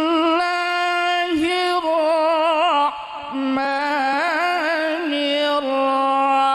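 A man chanting a Qur'anic verse in melodic recitation into a microphone: long held notes with ornamented, wavering pitch, broken by short pauses about a second and a half and three seconds in. The sound system adds echo.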